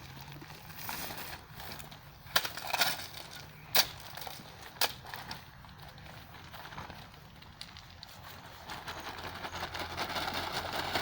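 Shovels scraping through a cement-and-gravel mix laid out for hand-mixing concrete, with a few sharp knocks between two and five seconds in. The scraping grows louder near the end.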